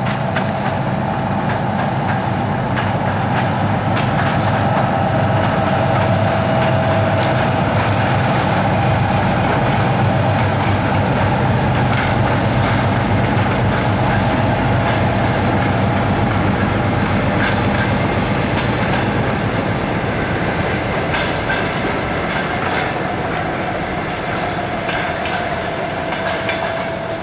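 Three-section 3TE10U diesel locomotive's two-stroke 10D100 engines working hard as it pulls a passenger train away, a dense low rumble with a steady whine over it. As the coaches follow, their wheels click and clatter over the rail joints, and the sound eases slightly near the end.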